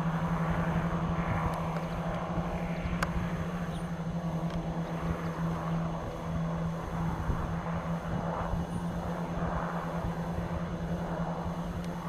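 Aerocopter AK1-3 light piston helicopters in flight: a steady engine drone over a churning low rotor rumble.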